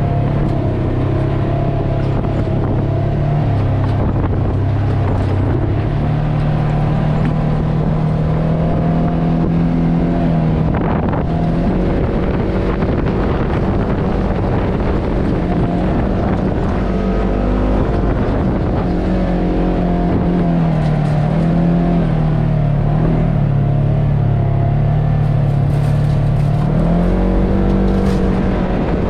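Polaris RZR 1000 S side-by-side's parallel-twin engine running under way on a dirt trail, its pitch holding, dipping and rising with the throttle, with a rise about two seconds from the end. A few sharp knocks from the ride are heard near the end.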